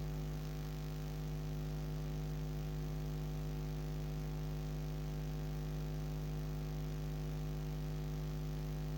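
Steady electrical hum: a low, unchanging buzzing tone with several overtones.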